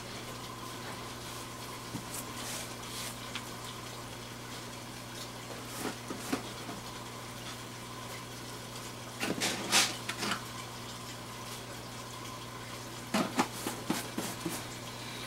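Aquarium water running steadily with a low equipment hum, broken by short splashy clusters as large fish hit the surface to take floating pellets: a few small ones about six seconds in, a louder burst near the middle, and another cluster near the end.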